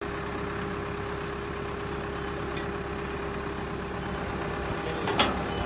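Livestock feed mixer running steadily, a constant mechanical drone with a held hum, while hay is forked into its hopper. One sharp clank stands out about five seconds in.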